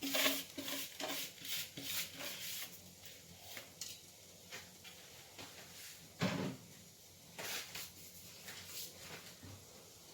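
Kitchen handling sounds: quick light clicks and knocks of a pot and utensils while oiled vermicelli is moved into the pot, with a louder knock about six seconds in.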